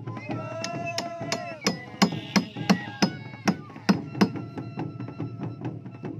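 Steel chisel struck with a metal hammer head, gouging wood chips out of the inside of a dugout canoe hull: steady sharp knocks, a little under three a second.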